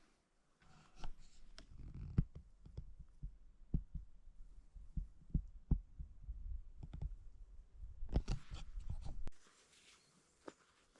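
Irregular close knocks, clicks and rustling over a low rumble: handling noise near the microphone as someone settles in and moves gear. It stops abruptly about nine seconds in, leaving a faint outdoor hiss.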